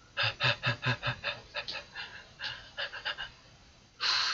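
Rapid panting, about four to five breaths a second, slowing and trailing off after about three seconds. A louder, longer hissing sound starts near the end.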